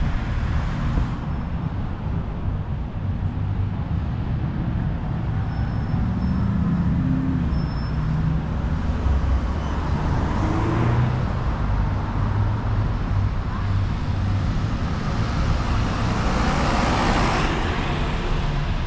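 City street traffic: a steady low rumble of car and bus engines. Vehicles pass close about ten seconds in and again near the end.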